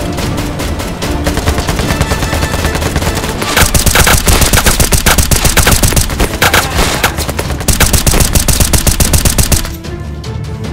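Automatic gunfire sound effects over action background music: a long rapid burst of shots begins about a third of the way in and a second burst follows shortly after, then the music carries on alone near the end.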